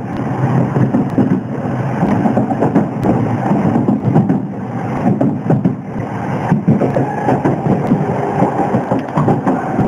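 Train running, with a steady rumble and rail clatter heard from inside the carriage.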